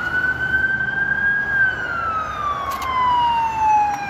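Police siren wailing: the pitch holds high, slides slowly down over a couple of seconds, then climbs quickly again at the end.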